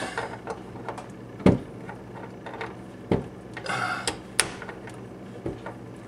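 Handling of a refrigerator water-line compression fitting and a pair of pliers: a few sharp clicks and taps, with a brief scraping just before four seconds in, over a low steady hum.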